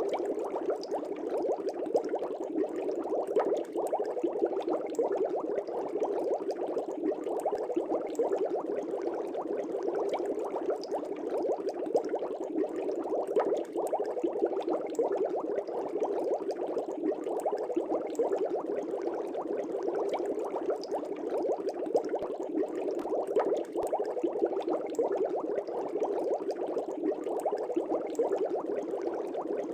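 Air bubbles rising through a fish tank, bubbling steadily and densely with many small gurgles and pops.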